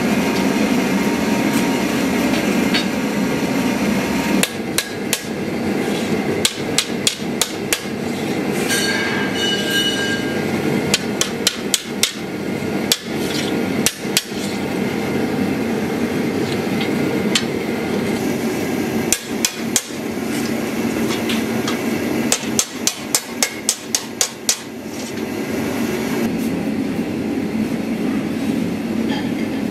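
A hand hammer strikes a red-hot steel sword blade on a Kohlswa anvil in several runs of sharp blows, from about four seconds in to about twenty-five seconds. Behind it is the steady roar of a blower-fed gas forge.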